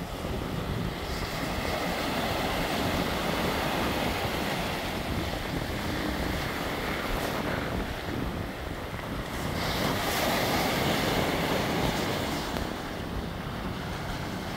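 Sea waves breaking and washing onto a rocky shore, a steady surf wash that swells louder twice, with wind buffeting the microphone.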